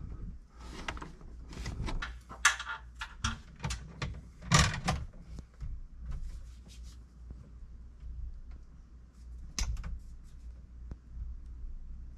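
Hand tools and wires worked inside a metal electrical sub panel while a breaker is wired in: scattered clicks, scrapes and clunks against the steel box. The loudest come about two and a half and four and a half seconds in, with a sharp click about three-quarters of the way through.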